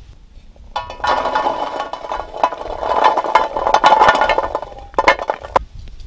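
Clattering and clinking of metal cookware, with a ringing tone under the rattle. It comes in one long bout starting about a second in, then a short second bout near the end.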